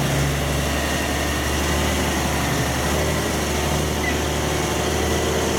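Diesel engine of a loaded log truck running at low revs as the truck and trailer pull slowly past, a steady low engine note.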